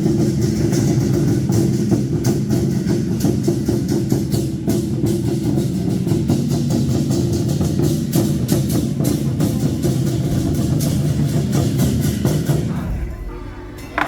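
Temple procession percussion band playing drums with dense, rapid strikes in a steady, unbroken rhythm, which dies down about thirteen seconds in.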